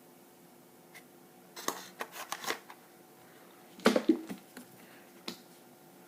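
Packaging being handled at close range, most likely a plastic food container: a quick run of crinkles and clicks about two seconds in, then a louder cluster of knocks about four seconds in, and a single click near the end.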